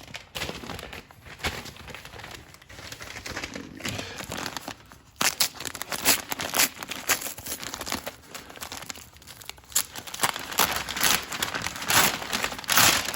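Packaging bags crinkling and rustling as a package is unwrapped by hand, in short rustles that get louder from about five seconds in.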